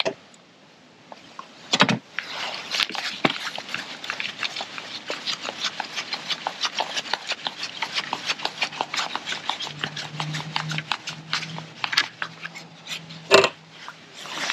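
A fishing landing net head being handled and fitted: a long run of quick small clicks and scrapes, several a second, with a sharp knock about two seconds in and another near the end.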